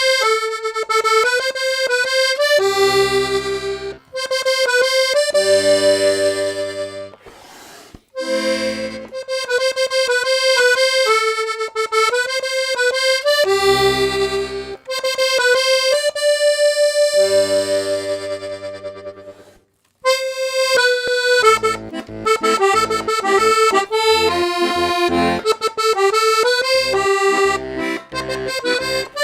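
Parrot Falcon three-row diatonic button accordion in G/C/F, playing a tune: the treble melody sounds on two middle reeds (MM), and bass and chord buttons come in between phrases. About twenty seconds in it stops for a moment, then starts a second, quicker piece with busier bass.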